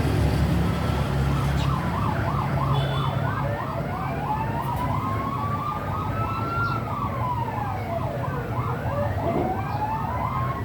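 Emergency vehicle sirens: a fast yelp warbling about three times a second, with a slower wail rising and falling over it. A low rumble of road traffic runs underneath.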